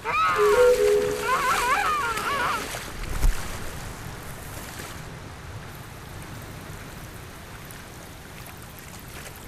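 Sea water splashing and washing at the surface, with a low thump about three seconds in. For the first two or three seconds, warbling high sounds play over two held steady tones, then the sea noise grows fainter.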